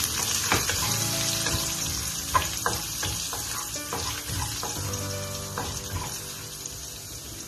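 Chopped garlic sizzling in hot oil in a wok, stirred with a spatula that scrapes and knocks against the pan now and then. The sizzle fades a little toward the end.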